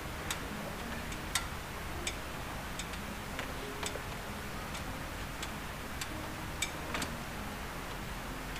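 Scattered sharp clicks, about one or two a second at uneven spacing, over a steady low background noise.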